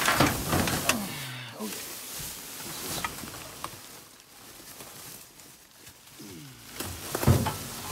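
Plastic garbage bags rustling and crinkling as they are shifted and dug through by hand, with scattered clicks and a couple of sharper rustles, the loudest near the end.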